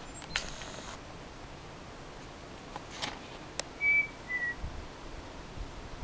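A person whistling two short notes, the first held level, the second a little lower and sliding down slightly. A few sharp clicks come before them.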